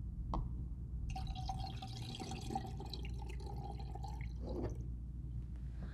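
Orange coolant poured from a plastic jug through a funnel into the engine's coolant reservoir, running steadily for about three and a half seconds from about a second in: the final top-up of the reservoir after refilling the cooling system.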